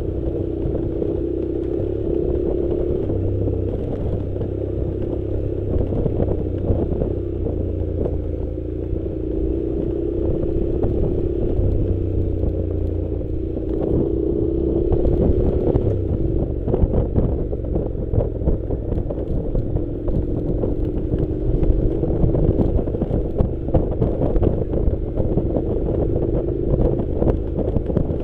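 Honda NC700 motorcycle's parallel-twin engine running at low, fairly steady revs, its pitch rising and falling a little, with scattered knocks and clatter from riding over a rough dirt track.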